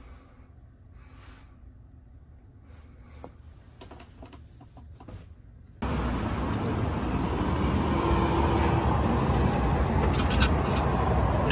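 Quiet room tone with faint rustling from the camera being carried, then a sudden jump to the loud, steady, dense ambience of an open-air food stall, with a few sharp clicks of dishes or utensils near the end.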